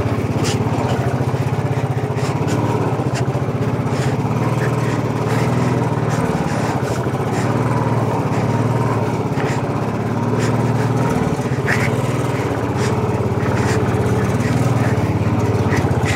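Royal Enfield single-cylinder motorcycle engine running steadily at low revs on an off-road climb, with a few light knocks over it.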